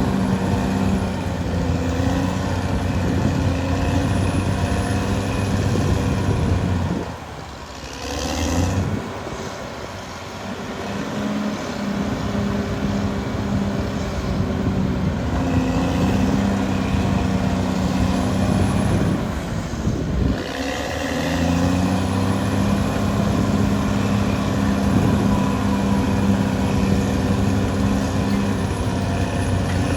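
Caterpillar D6R XL bulldozer's diesel engine running steadily at work, dropping away sharply about seven seconds in and again about twenty seconds in, then coming back up.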